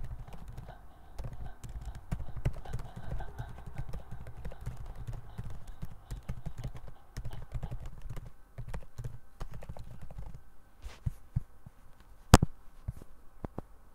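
Mozilla TTS transformer voice output that has run on without stopping into a low, choppy, garbled sound with no clear words, the model failing to end the utterance; it cuts off about ten and a half seconds in. Computer keyboard typing clicks throughout, and a single sharp click near the end is the loudest sound.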